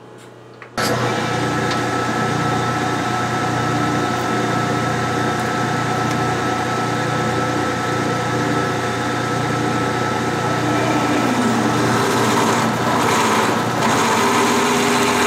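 Metal lathe switched on about a second in, its spindle and chuck coming up to speed and then running steadily, with a constant high tone over a low motor hum.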